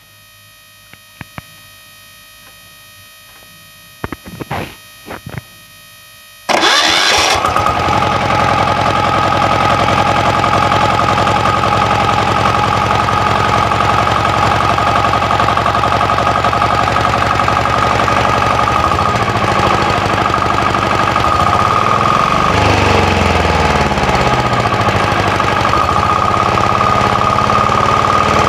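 Single-cylinder 186FAE air-cooled diesel engine starting suddenly about six seconds in, after a few clicks, then running steadily.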